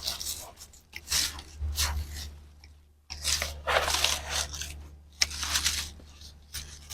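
Crunchy rustling and scraping of sweet potato vines and grow-bag soil being handled, in about four bursts, over a low steady hum.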